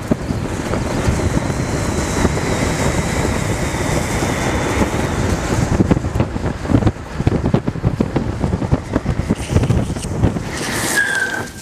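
Wind rushing over the microphone and longboard wheels rolling fast on rough asphalt during a downhill run. Near the end a short high squeal falls in pitch, typical of urethane wheels sliding as a rider scrubs speed.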